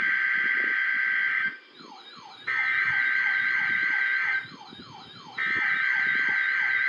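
NOAA Weather Radio SAME header data bursts opening the Required Weekly Test: three harsh, buzzy digital tone bursts of about one and a half seconds each, separated by pauses of about a second.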